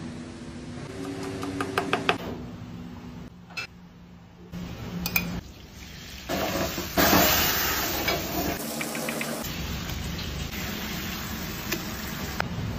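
A knife chopping basil on a cutting board, a quick run of taps in the first couple of seconds. About six seconds in, chopped red pepper, green chili and basil start sizzling loudly in hot oil in a frying pan, a steady frying hiss with some pan clinks.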